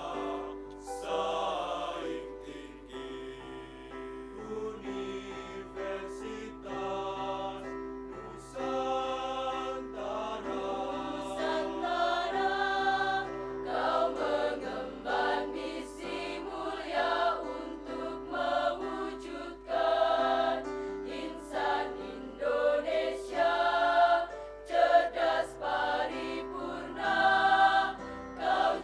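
Mixed choir of men's and women's voices singing a university hymn in long held notes.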